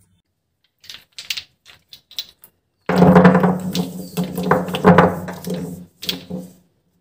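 Small plastic poster-colour paint bottles knocking and clattering against each other and the tabletop as they are handled and set down. There are a few light clicks about a second in, then about three seconds of dense rattling.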